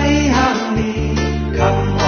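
Shan (Tai Yai) Songkran pop song performed live by a band with keyboard and a heavy pulsing bass, with male voices singing into microphones.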